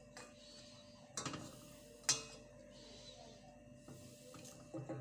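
A few light clinks and knocks of a kitchen utensil against a cooking pot, the sharpest and loudest one about two seconds in, with more small knocks near the end.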